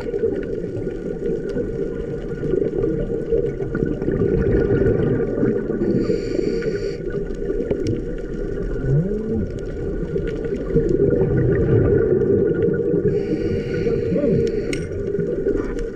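Underwater sound of a scuba diver breathing through a regulator: a hiss of inhalation about a second long, twice, some seven seconds apart, over a steady low rumble of water and bubbles.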